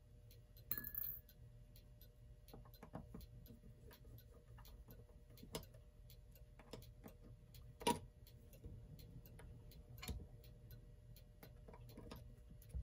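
Small metal clicks and taps of a screwdriver and screws being worked on a clock movement, the loudest sharp click about eight seconds in. A faint steady ticking of a clock runs underneath.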